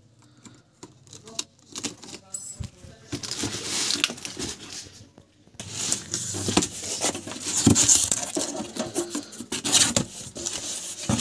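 A cardboard box and its plastic wrapping are handled and opened: rustling and scraping with many small clicks and knocks. It is faint at first, then gets louder from about three seconds in and louder again from about halfway.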